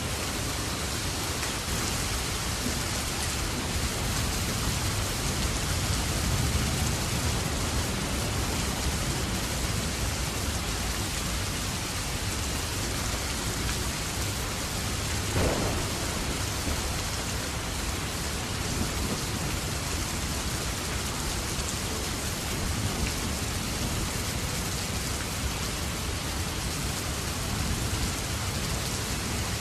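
Steady rain falling, an even, dense hiss with no letup. About halfway through there is one brief, sharper sound.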